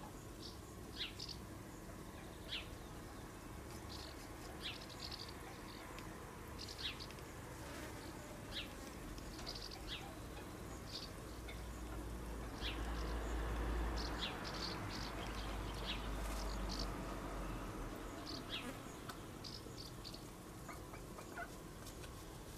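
Quiet backyard ambience: scattered short, high-pitched chirps over a faint steady background, with a low rumble that swells about halfway through and then fades.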